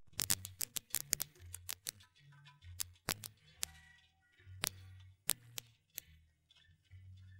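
Surface noise of a vinyl record between songs: scattered, irregular clicks and pops over a faint low hum.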